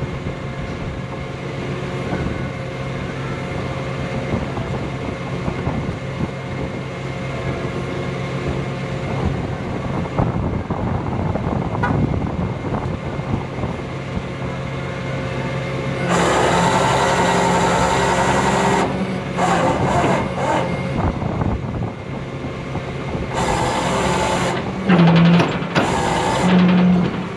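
Tow truck's engine running steadily. About sixteen seconds in, a louder, higher mechanical whine joins it, cutting in and out several times near the end.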